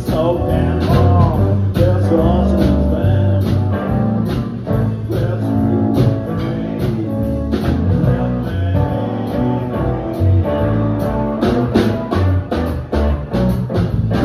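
Live band playing: electric guitar over an electric bass line and a drum kit keeping a steady beat.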